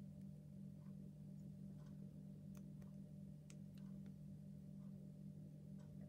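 Near silence: a steady low hum, with a few faint small ticks as the thin wire leads of a glass reed switch are bent by hand.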